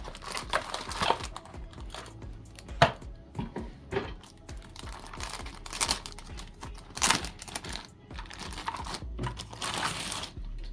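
Plastic wrapping crinkling and rustling as a keyboard is pulled out and unwrapped, with irregular handling clicks and knocks.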